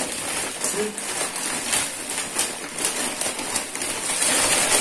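Thin black plastic carrier bag crinkling and rustling continuously as hands rummage through it and lift it, with crackles throughout.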